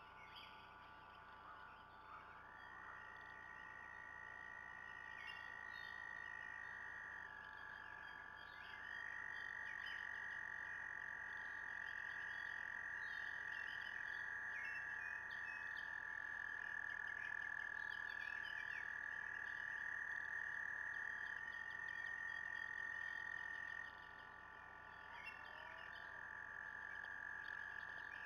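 A chorus of frogs trilling: long, unbroken high trills, two or three overlapping at slightly different pitches. The chorus grows louder about a third of the way in and eases off near the end. Faint bird chirps sound above it.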